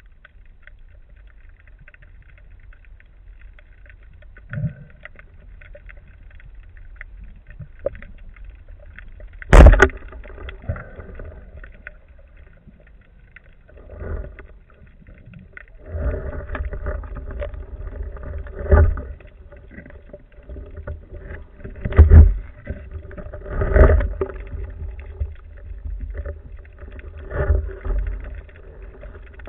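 Underwater, a band-powered wooden speargun fires with one sharp, very loud crack about ten seconds in. After it come repeated heavy knocks and water noise as the diver handles the line and swims up with the speared fish on the shaft.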